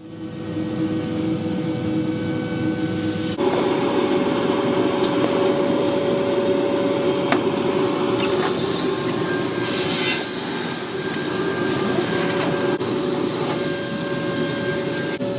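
Holz-Her 6210 Cut 85 CNC panel saw running with a steady mechanical noise and hum. About three seconds in it gets louder, and around ten seconds in there are a few brief high squeals.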